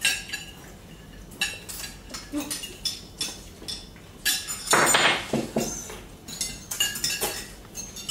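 Metal forks clinking and scraping against ceramic dinner plates in a run of short sharp clinks, with a brief louder rush of noise about five seconds in.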